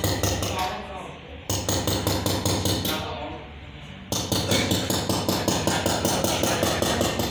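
Chasing hammer tapping rapidly and evenly on a chasing punch against metal, in runs of quick light strikes with a short pause about three seconds in: a craftsman working a design into a metal plate.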